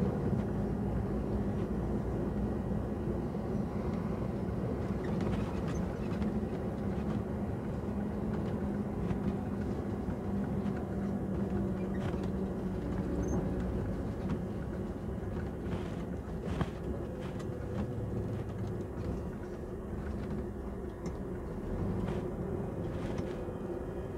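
Lorry engine running while driving, heard from inside the cab: a steady low drone with a few faint clicks.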